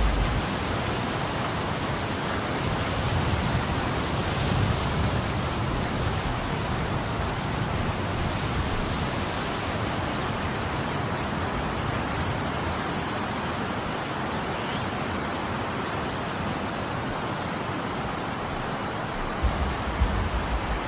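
Steady hiss of a winter snowstorm, with wind buffeting the microphone in low rumbles that come in gusts, strongest a few seconds in and again near the end.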